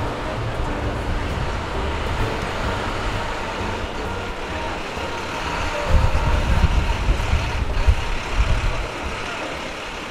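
City street traffic noise, a steady hum of passing vehicles, with a louder low rumble from about six to nine seconds in.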